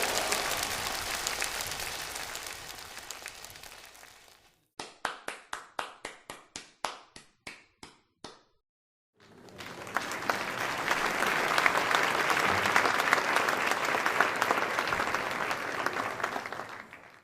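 Applause fading out, then about a dozen separate, evenly spaced claps at three to four a second, then a second round of applause that swells and dies away near the end.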